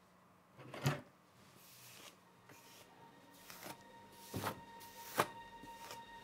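A few separate knocks and rustles, the loudest about a second in and another sharp click near the end; a soft sustained music tone comes in over the last second or so.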